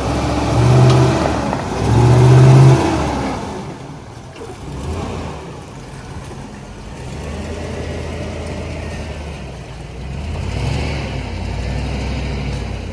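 A vehicle engine revving up twice in quick succession, then running more steadily with another smaller rise near the end.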